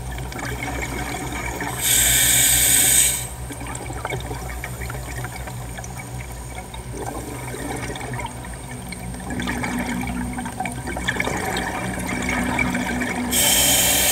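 Scuba diver's exhaled bubbles rushing out of the regulator twice, about two seconds in and again near the end, each a loud hiss lasting a little over a second, over a steady low underwater rumble.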